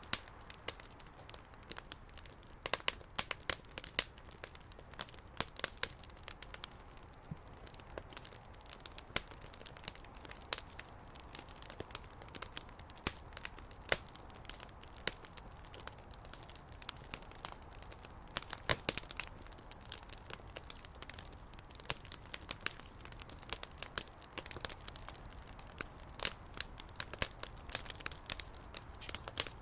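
Bonfire crackling, with dense, irregular sharp pops.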